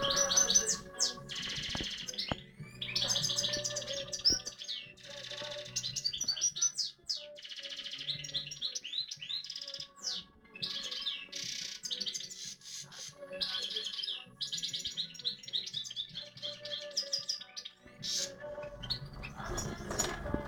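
European goldfinch singing: a string of rapid, twittering high phrases broken by short pauses.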